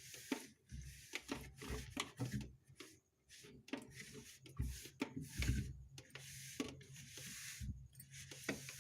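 Cloth wiping and rubbing the plastic inside of a fridge, with scattered light knocks and clicks as it is handled.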